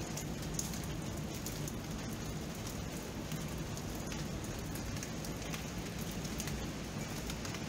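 Steady rain: an even hiss of falling rain, dotted with many sharp little taps of single drops.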